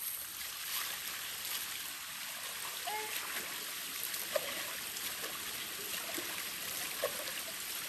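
Water splashing and sloshing as hands scoop and splash in a shallow stream, over the steady sound of running water. A few short chirping sounds come through about three, four and seven seconds in.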